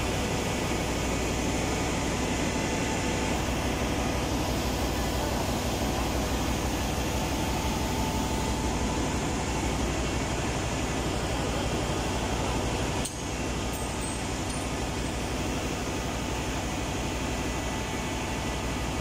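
Steady drone of a ship's engine room: running machinery and ventilation fans giving an even hum and rush, dipping briefly about two-thirds of the way through.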